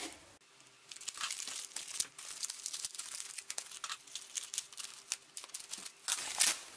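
Foam packing sheet crinkling and rustling as it is handled and cut open with scissors: irregular crackles and small snips, a little louder near the end.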